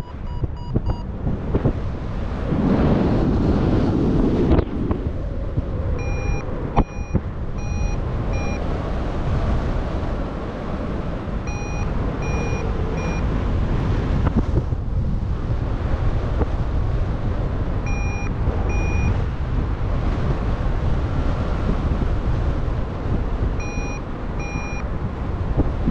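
Wind rushing over the microphone in paraglider flight, with a paragliding variometer beeping in short runs of two to five evenly spaced beeps, four times over: the vario's climb signal in lift.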